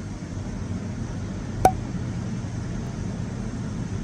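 Jacuzzi bathtub's jet pump running steadily with a low hum and rush, with one sharp click about one and a half seconds in.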